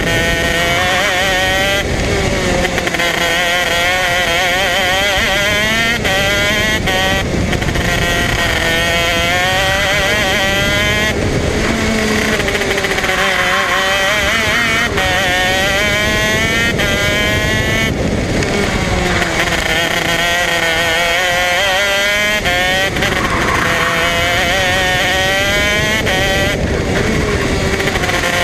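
125cc KZ shifter kart's two-stroke engine at racing speed. Its high, buzzing note climbs steadily and drops back sharply several times as the kart works through the gears and corners.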